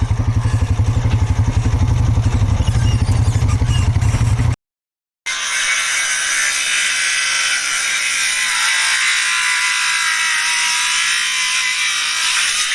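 ATV engine running at a steady, evenly pulsing low rumble. It cuts off abruptly, and after a short gap a steady high hiss takes over.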